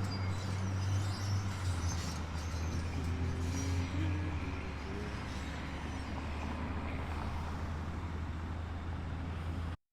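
A motor vehicle's engine running steadily, a low hum that drops a little twice, over traffic noise. The sound cuts off suddenly near the end.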